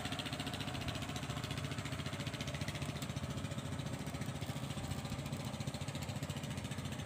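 A boat engine idling steadily, with a rapid, even pulse.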